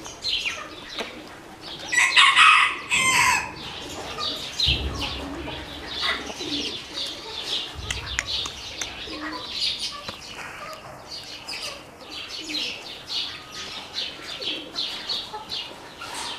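Black Orpington chickens calling in their pen: one loud call about two seconds in, then a run of short high calls at a steady pace through the rest.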